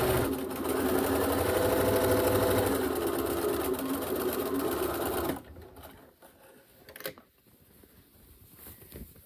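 Bernina sewing machine running steadily as it stitches a seam through cotton fabric and elastic, then stopping abruptly about five seconds in. Afterwards faint handling sounds and a single sharp click.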